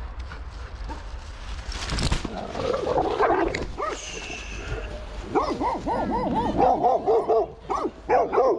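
Excited dogs barking and yipping during a close encounter. Scattered short yelps come first, with a brief rustling noise about two seconds in. From about five seconds in there is a fast run of high barks, about five a second, broken by a short pause near the end.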